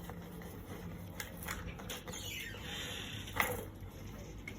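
Light handling sounds: a few soft clicks and a scraping rustle, with one sharper knock about three and a half seconds in.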